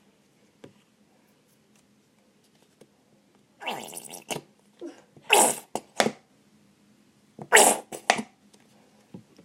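Glue squeezed from a bottle into a bowl, spurting out with air in three loud, rough bursts in the second half.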